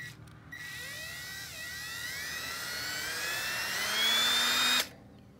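Ridgid 18-volt cordless drill with a 3/16-inch bit boring into a rusty steel gate hinge collar: a high whine that climbs steadily in pitch and grows louder, dipping briefly about a second in, then cuts off suddenly near the end. The bit is walking on the steel because it is not a split-point bit.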